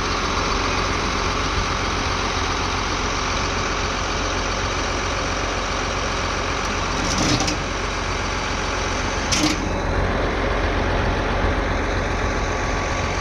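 John Deere tractor's diesel engine running steadily close by, with two short knocks about seven and nine and a half seconds in.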